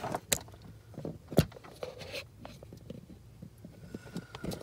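Handling noise under a truck's dashboard: scattered clicks, taps and rustles of hands and a phone moving against wiring harnesses and plastic trim. One sharp knock about a second and a half in is the loudest.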